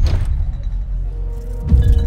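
Commercial soundtrack music. A sudden deep hit comes at the start and another just before the end, and held notes come in after about a second and a half.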